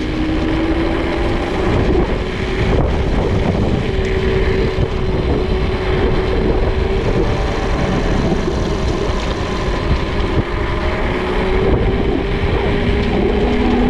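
Electric mountain bike rolling down asphalt: a steady hum that drifts slowly up in pitch over a heavy low rumble of wind on the microphone.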